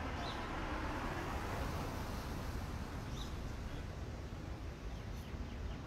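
Steady low outdoor background rumble, with faint distant voices in the first two seconds.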